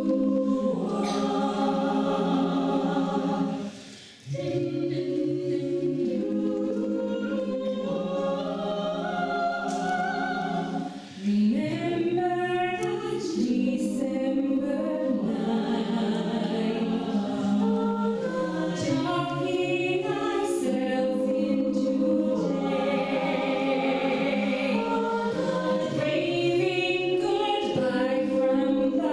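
Mixed-voice a cappella choir singing sustained chords in close harmony into handheld microphones, with no instruments. The sound briefly dips twice, about four and eleven seconds in, before the voices come back in.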